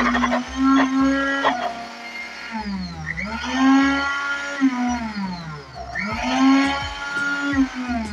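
Countertop jug blender motor running, blending chunks of cooked pumpkin with milk into soup. Its whine drops and climbs back up twice, about three seconds apart, as the speed changes.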